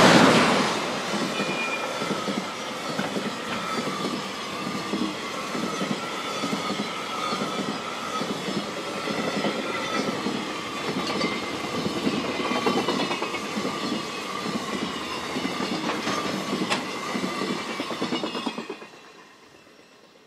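Freight train hauled by an EH500 electric locomotive passing close by: loudest right at the start as the locomotive goes past, then a long run of freight wagons with wheels clattering steadily over the rail joints and a thin wheel squeal underneath. The sound drops away sharply near the end as the last wagon passes.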